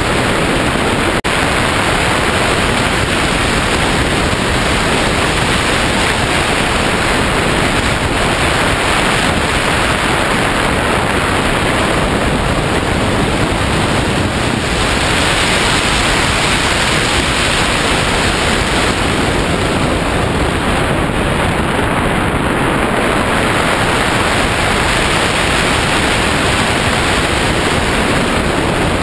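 Steady, loud rush of airflow buffeting the microphone of a wing-mounted camera on a hang glider in flight.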